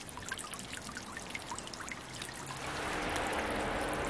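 Pond water trickling and dripping, with scattered small splashes. About two and a half seconds in, a louder, denser rush of water comes in together with a low steady hum.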